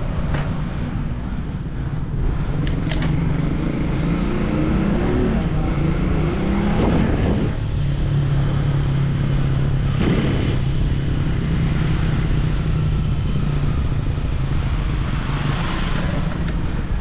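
Road traffic heard from a bicycle: a motor vehicle's engine rises in pitch a few seconds in, then runs at a steady pitch, over low wind noise on the microphone.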